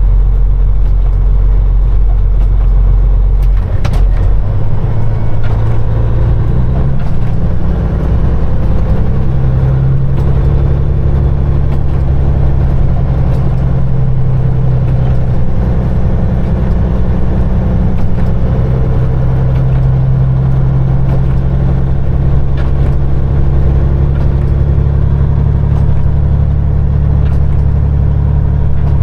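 Peterbilt 389 semi truck's diesel engine running under load. About four seconds in, its note climbs over several seconds as the truck speeds up, then holds steady.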